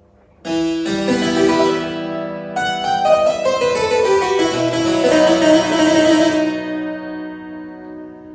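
Italian single-manual harpsichord playing: a plucked chord about half a second in, then a short passage of notes stepping downward, ringing on and fading away near the end.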